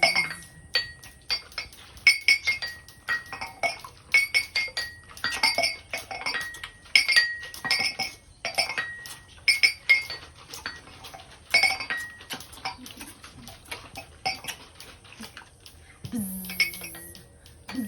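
Small hand percussion struck over and over at an uneven pace, each strike a bright clink that rings briefly at the same few high pitches. Near the end a low hummed or sung voice tone joins in.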